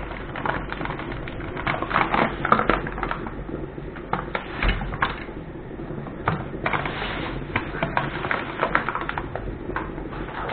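Paper bag of flour crinkling and rustling as it is handled, in a run of short, irregular crackles.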